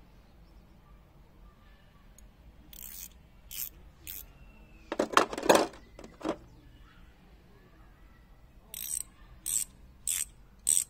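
Steel Festool wrenches clinking against each other and the tray as they are lifted out of and set back into the organizer's foam insert, with the loudest clatter about five seconds in. Near the end come four short, evenly spaced clicks from the ratchet ring of a ratcheting combination wrench being turned in the hand.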